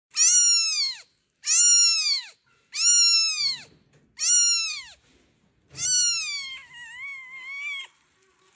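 Very young kitten mewing: five high-pitched cries of about a second each, each dropping in pitch at the end. The last cry is drawn out and wavering.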